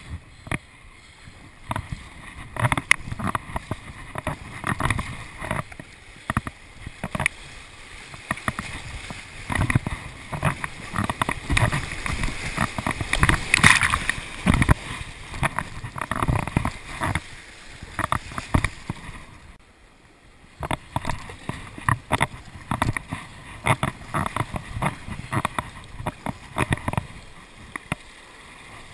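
Whitewater rushing and splashing around a kayak running a rapid, with paddle strokes splashing and water slapping the hull in quick irregular strikes. The splashing is loudest about halfway through, where spray washes over the bow, and eases briefly a little over two-thirds of the way in.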